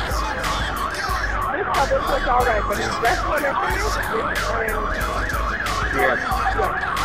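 An emergency-vehicle siren in fast yelp mode, its pitch rising and falling about three or four times a second, with repeated short crackles underneath.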